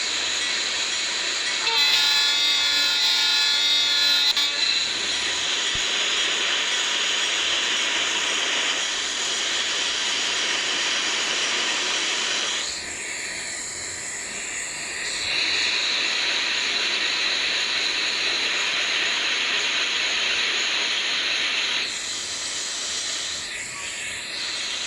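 Freight train rolling past with a steady wheel-and-rail hiss and rumble. A train horn sounds once for about three seconds, starting about two seconds in.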